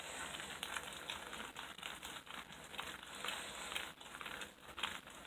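Football receiver gloves, worn on both hands and covered in dish soap, being rubbed together: an irregular run of crinkling crackles from the tacky glove material and lather.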